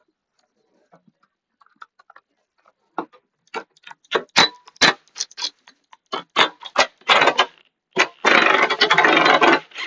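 Socket ratchet clicking as a 10 mm metric exhaust screw is loosened: irregular strokes of sharp clicks, then about a second and a half of fast continuous ratcheting near the end.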